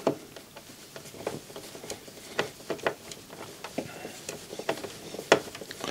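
Scattered light clicks and taps of small tools and parts being handled on an opened CD player's metal chassis, at an irregular pace with no steady rhythm.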